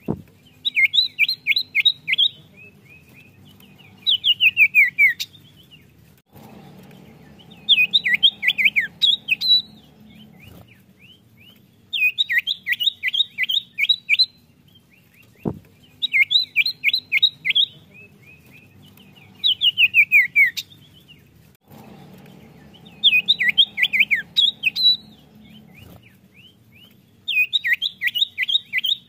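Common iora (cipoh) singing: about eight loud phrases of rapid, evenly repeated notes, each lasting about two seconds with short pauses between, some ending in a few falling whistles.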